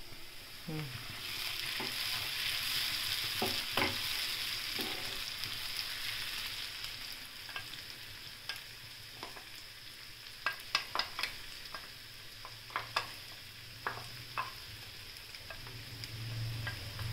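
Boiled, ground tomato purée hitting hot oil in a pan of frying onions and sizzling, loudest in the first few seconds and then settling to a softer fry. In the second half there are a number of sharp taps and clicks as the mixer-grinder jar is worked over the pan.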